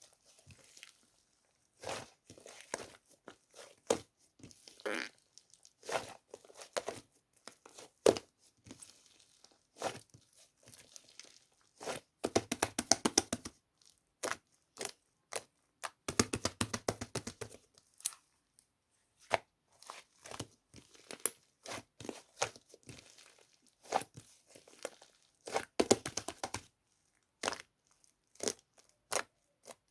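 Whipped-cream waffle slime being pressed, poked and stretched by hand, giving sticky pops and clicks. Twice, at about twelve and sixteen seconds in, it breaks into a couple of seconds of rapid crackling.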